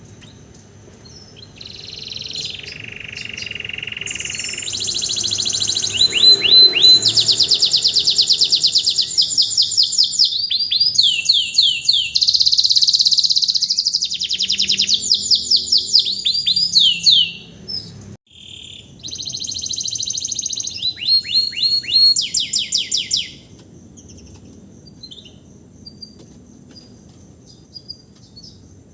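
Domestic canary singing a long song of rapid trills and fast repeated notes, in full song after its moult. The song breaks off briefly in the middle and stops a few seconds before the end, leaving only faint scattered chirps.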